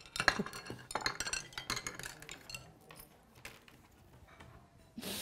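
Crockery and eating utensils clinking as dishes are cleared from a finished meal: a quick run of light clinks and knocks that thins out to a few scattered ticks.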